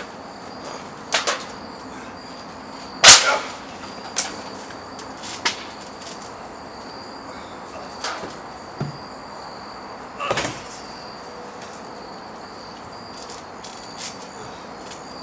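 Scattered sharp knocks and thuds of wrestlers moving on a backyard trampoline, the loudest about three seconds in. A faint steady high chirring of insects runs underneath.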